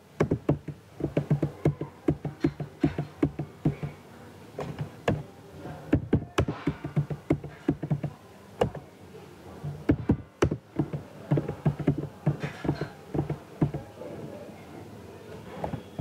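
Typing on a computer keyboard: quick key clicks in uneven runs, with a short pause about four seconds in, thinning out near the end.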